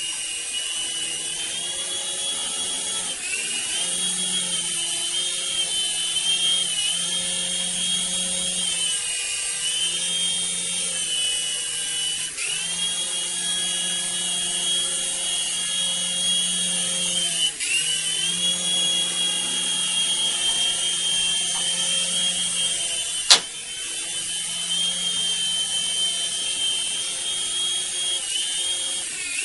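Small electric rotor motor of a mini helicopter whining at a high pitch. The whine wavers up and down with the throttle and sags briefly three times. One sharp click sounds about two-thirds of the way through.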